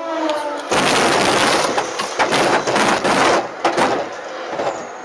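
A train striking the front of a car at a level crossing: a sudden loud crash about a second in, then about three seconds of harsh scraping and rattling noise with several sharp knocks as the train's side sweeps past.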